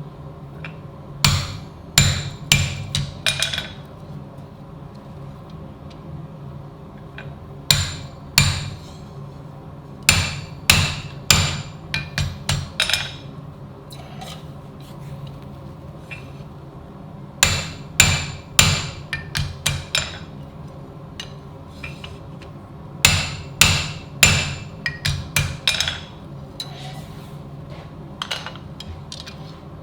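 Hand hammer striking steel on an anvil in short runs of quick blows, each blow ringing, with pauses of a few seconds between the runs. A steady low hum runs underneath.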